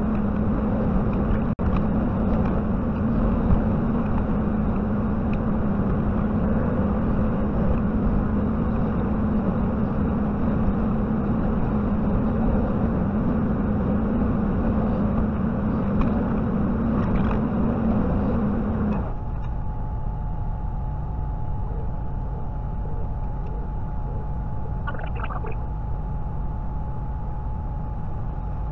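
JCB 55Z mini excavator's diesel engine running steadily as a low drone. About two-thirds of the way through the sound changes abruptly: the low drone drops away and a steady higher whine carries on.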